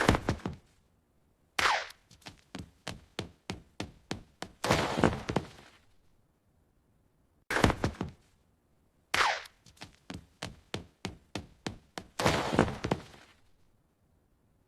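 Cartoon slapstick sound effects: a sharp hit, a quick falling whoosh, a quick run of knocks and a noisy crash that dies away. The same sequence plays twice.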